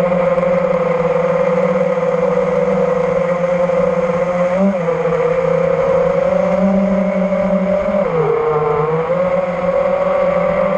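FPV quadcopter's electric motors and propellers whining in flight, heard from the onboard GoPro. The pitch holds steady, dips briefly about four and a half seconds in, rises a little, then dips again around eight seconds as the throttle changes.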